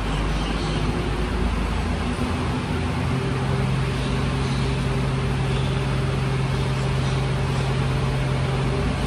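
A Mercedes-Benz refuse truck's diesel engine running steadily while the truck stands parked. A low hum grows stronger about three seconds in.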